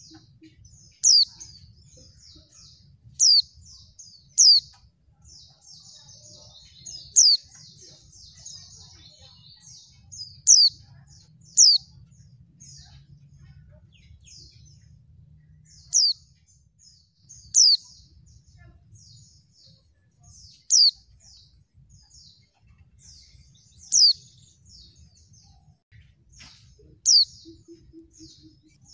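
Female white-eye (pleci) calling: a sharp, high, downslurred call about a dozen times, one every one to four seconds, with soft twittering notes in between, busiest in the first half. This is the female call that keepers play to provoke male white-eyes into answering and singing.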